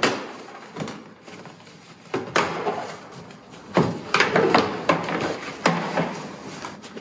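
Plastic cowl trim panel at the back of a Tesla Model S front trunk being pulled loose by hand: a string of sharp clicks and knocks as its clips let go, with plastic rubbing in between. The knocks come thickest about halfway through.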